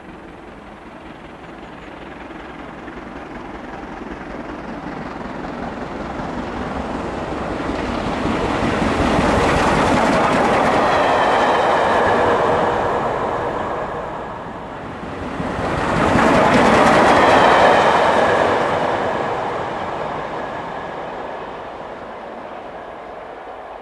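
LMS Black 5 steam locomotive, a two-cylinder 4-6-0, passing at speed. The sound builds as it approaches, is loudest twice around the middle with a brief dip between, then fades as it runs away.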